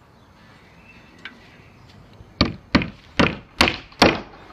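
Five quick hammer blows on timber, about one every half second, each ringing briefly.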